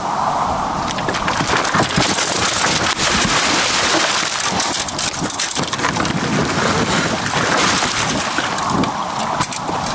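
Wind buffeting the microphone on an open boat: a loud, steady rushing with many crackles and pops throughout.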